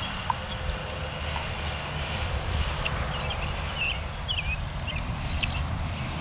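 Low, uneven rumble of wind buffeting the microphone, with scattered short, high bird chirps over it.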